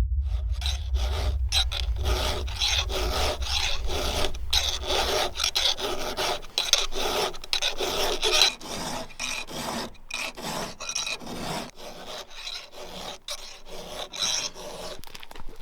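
Repeated rasping strokes, like a hand file or rasp worked back and forth, several strokes a second and somewhat fainter in the last few seconds.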